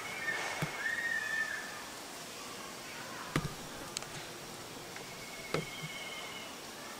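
High, steady whistled animal calls, a few at the start and another near the end, with three sharp clicks in between.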